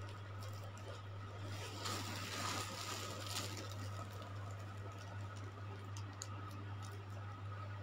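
Low steady hum with faint rustling and a few light clicks.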